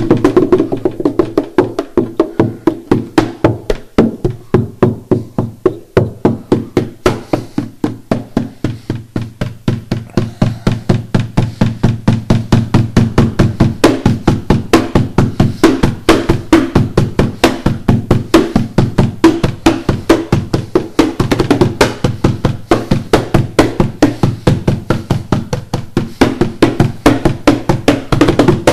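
Hands drumming on the body of an acoustic guitar and a cardboard box: a steady, fast pattern of knocks and slaps, about four a second, with a hollow, woody ring.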